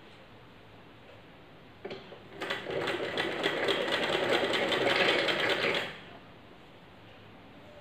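Sewing machine stitching a seam through folded cotton fabric, running in one burst of rapid ticking stitches for about three and a half seconds, starting about two seconds in and stopping near six seconds, with a single click just before it starts.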